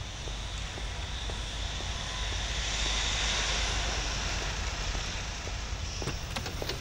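A vehicle's rushing noise that swells to a peak in the middle and fades again, over a steady low traffic rumble.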